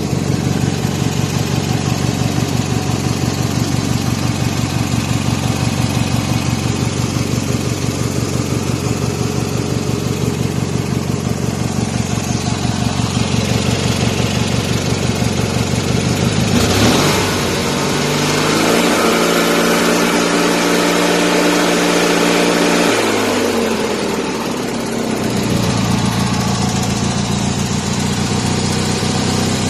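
Ford YT 12.5 garden tractor's engine idling steadily, then revved up with the dash throttle lever about 17 seconds in. It is held at high speed for several seconds and drops back to idle near 24 seconds.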